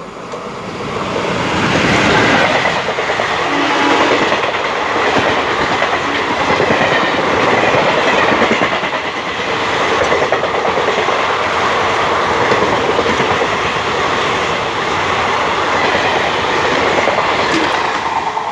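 Alco WDM-3A diesel locomotive and its express coaches passing at speed, about 110 km/h, with the rapid clickety-clack of wheels over the rail joints. The sound swells over the first two seconds as the locomotive arrives and stays loud and steady while the coaches rush by.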